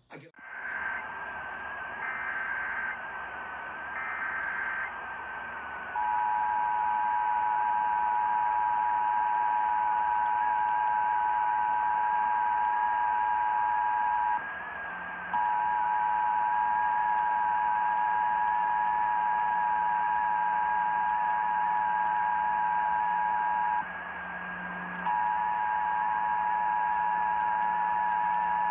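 Emergency Alert System signal received over a radio with static hiss: three short bursts of the screeching digital SAME header, then the steady two-tone EAS attention signal, which cuts out twice for about a second. Together they announce an incoming alert, here a required monthly test.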